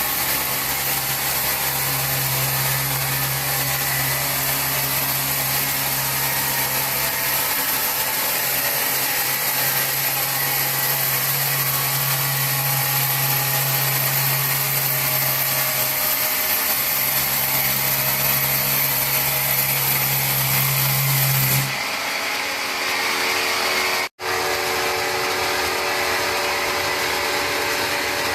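Powered wood saw running steadily, a low hum under a hiss. The sound changes abruptly about 22 seconds in and drops out for an instant about two seconds later.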